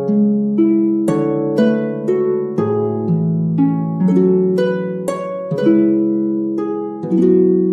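Background music of plucked-string notes, a new note about every half second, each ringing on under the next.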